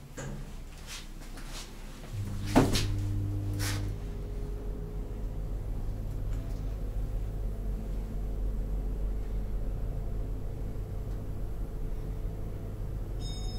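SMW passenger lift starting and travelling: a few clicks, then about two seconds in the drive starts with a low hum and a loud clunk, followed by a second clunk. The car then runs with a steady hum, and high beeping tones begin near the end.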